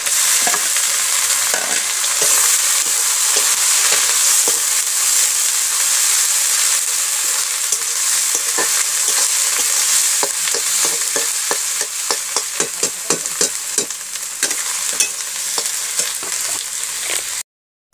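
Onion paste sizzling in hot oil in an aluminium kadhai, stirred with a metal spatula. From about halfway on, the spatula scrapes and taps against the pan more and more often. The sound cuts off suddenly just before the end.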